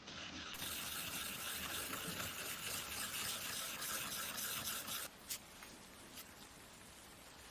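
A steady hissing spray for about five seconds that cuts off suddenly, followed by two light clicks.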